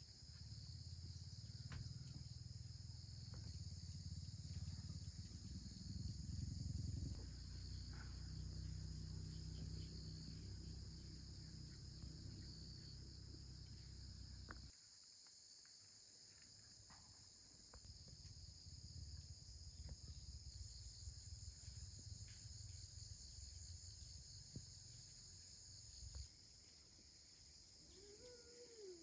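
Steady high-pitched chorus of insects such as crickets, faint throughout. Under it a low rumble cuts off suddenly about halfway, comes back a few seconds later and stops again near the end.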